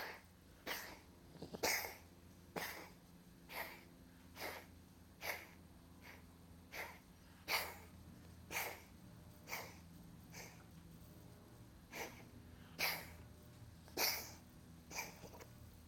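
A coughing fit: a long run of short, sharp coughs, about one a second, set off by brushing the throat.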